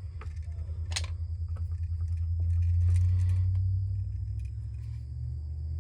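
A low, steady rumble that swells and fades, with a few faint clicks and taps from handling the outlet wiring.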